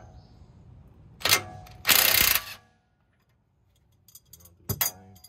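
Socket and crescent wrench working the 7/8-inch bolts that hold the front strut to the steering knuckle: a sharp metal clank about a second in, a loud harsh burst about half a second long near two seconds, then a few lighter clicks and another clank near the end.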